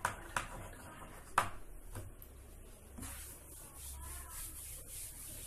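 A few sharp taps of chalk on a chalkboard, then a cloth duster rubbing the chalkboard clean in repeated wiping strokes from about halfway through.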